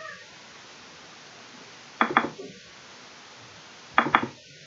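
Computer mouse double-clicking twice, about two seconds apart, each a quick pair of sharp clicks with a brief ring after, over a faint steady hiss.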